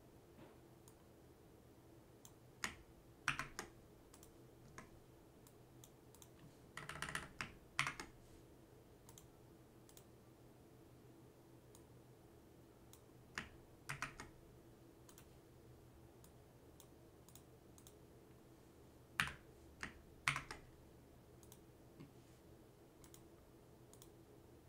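Computer keyboard and mouse clicks in four short runs a few seconds apart, as seller IDs are copied and pasted with keyboard shortcuts, over a faint steady hum.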